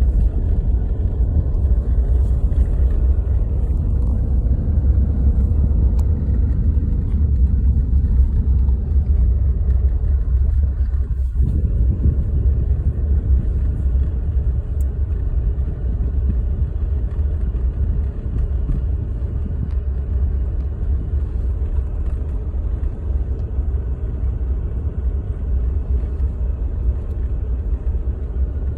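Motor vehicle driving at a steady pace: a continuous low rumble of engine and road noise.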